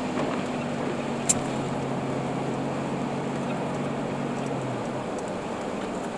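Vehicle cabin noise while driving: steady road and engine noise with a steady engine hum that drops away about five seconds in, and a single sharp click about a second in.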